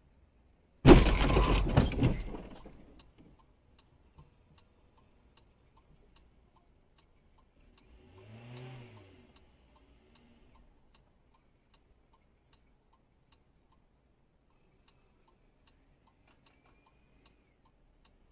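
A car crashing into the parked car with the dashcam: a loud, sudden crunching impact about a second in that dies away over about two seconds. Around the middle an engine revs up and back down once, and faint regular ticking continues throughout.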